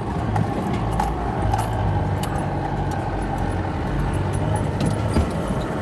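A 4x4's engine running at low revs as it drives slowly along a rough, winding dirt track, with steady road noise and frequent light jangling and rattling clicks.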